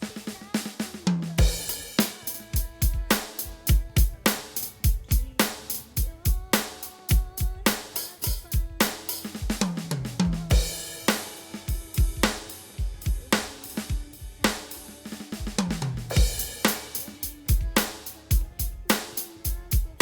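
Electronic drum kit played in a steady beat, with kick, snare, hi-hat and cymbal strikes. Three short tom fills step down in pitch: about a second in, about ten seconds in and near fifteen seconds.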